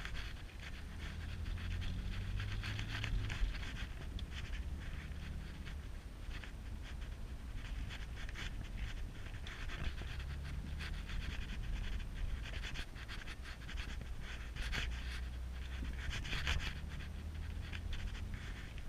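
Peugeot car driving, heard inside the cabin: a low engine and road hum that shifts down about three and a half seconds in. Over it, a breathy, panting-like sound comes in uneven bursts.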